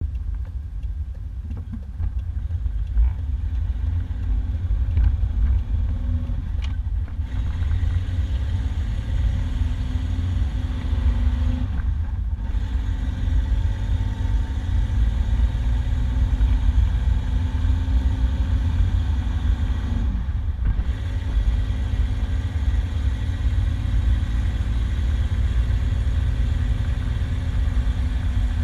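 A 1991 Isuzu Trooper under way on a paved road, heard from inside the cab: a steady engine drone over heavy road and wind rumble. The engine note climbs in pitch between three brief lulls, as the truck shifts up through the gears.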